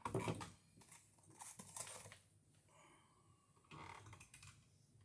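Quiet room with a few faint knocks and scrapes of handling.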